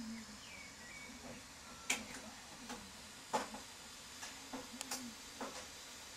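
Scattered light clicks and knocks, a handful spread irregularly over a few seconds, over a faint steady hiss, with a few short high chirps in the first second.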